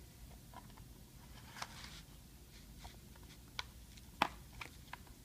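Plastic screen bezel of an HP Pavilion 15 laptop being pried loose with a credit card: scattered light clicks and snaps as its clips pop free, the sharpest about four seconds in.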